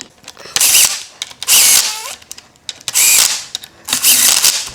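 A power driver running in the steering-knuckle kingpin cap bolts on a Dana 30 axle, in four short runs of under a second each, whining as it spins.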